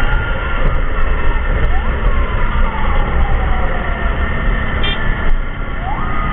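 Several emergency sirens wailing at once, their pitches rising and falling out of step with one another, over a heavy, steady low rumble from the moving convoy.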